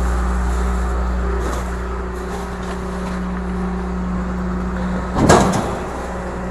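Rear-loader garbage truck's diesel engine running steadily in a low hum, with a loud thump about five seconds in as bags of trash are thrown into the metal hopper.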